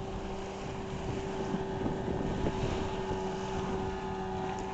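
Outboard motor of a 10-ft mini power boat running at high speed with a steady engine note as the boat planes past, over the rush of water and spray.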